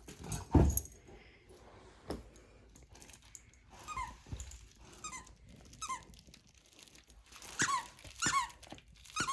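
Squeaker inside a plush dog toy squeaking as a Newfoundland dog chews it: short squeaks, each falling in pitch, coming a few at a time from about four seconds in. A single thump just after the start.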